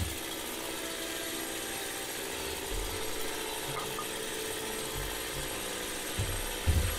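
A few dull knocks of wood as a chainsaw-cut block is worked loose and lifted out of a log, over a steady background noise.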